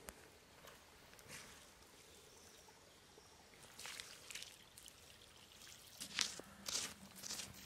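Water poured from a metal pot onto a campfire's ash bed, trickling, to douse the fire pit. From about four seconds in, a stick scrapes and stirs the wet ash and soil in repeated short strokes, louder near the end.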